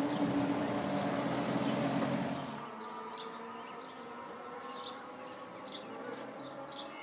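Northern Class 156 'Super Sprinter' diesel multiple unit running on the line, engine and wheel rumble, cutting off about two and a half seconds in. After that there is only faint background hum with a series of short high chirps.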